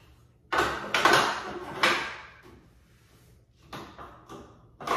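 Knocks and clatter of items being set down and shifted on a bathtub caddy tray: a cluster of knocks in the first two seconds, then a few lighter clicks near the end.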